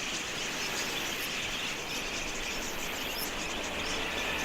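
A flock of budgerigars chattering: a dense, continuous mass of small chirps and warbles from many birds at once.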